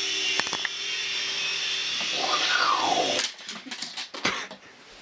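Toy RC helicopter's small electric motor and rotors whining steadily, then cutting off suddenly about three seconds in, followed by a few sharp clatters as it drops onto the wooden floor.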